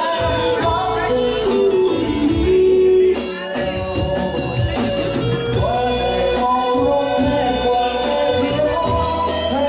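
Live band music with a sung melody over a steady drum beat, bass and keyboards.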